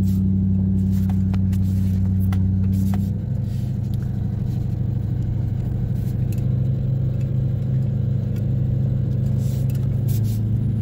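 Pickup truck engine running slowly under load in four-wheel drive, heard from inside the cab, hauling a heavy load of lumber up a grass track. The engine note steps down slightly about three seconds in, with a few light knocks over it.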